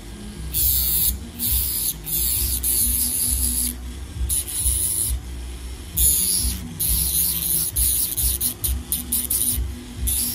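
Podiatry rotary handpiece with a small yellow sanding disc grinding the surface of a big toenail, hissing in bursts each time the disc is pressed to the nail. The bursts are longer in the first seconds and come in quick short touches near the end.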